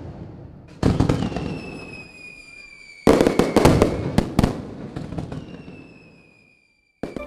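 Fireworks: a bang fading out at the start, another bang about a second in followed by a slowly falling whistle, then a burst of sharp crackling bangs about three seconds in with a second falling whistle, dying away to silence.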